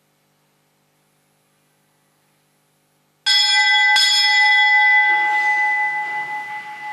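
A small bell, the sacristy bell signalling the start of Mass, struck twice under a second apart about three seconds in, then ringing and slowly fading.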